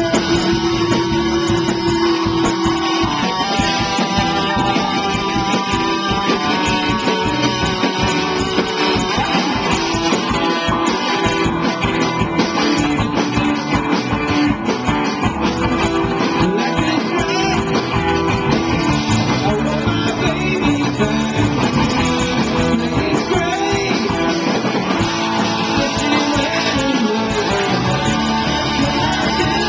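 Live rock band playing: electric guitar, bass and drums with a saxophone, and a man singing into the microphone. A dense, steady performance without a break.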